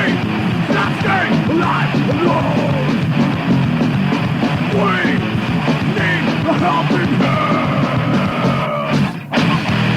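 Thrash metal band with a punk edge playing loudly from a 1993 cassette recording. The band cuts out for a split second about nine seconds in, then comes straight back.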